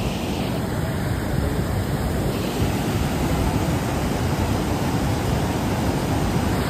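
The Beas River in flood, muddy water rushing over boulders in a steady rush of noise.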